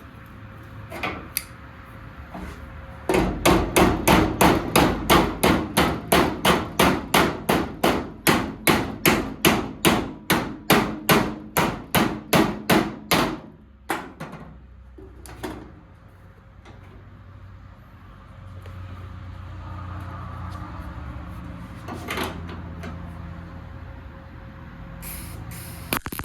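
Hammer beating on a car's sheet-steel cowl panel to fit it in place: a fast, even run of about thirty blows, roughly three a second, then a few single knocks.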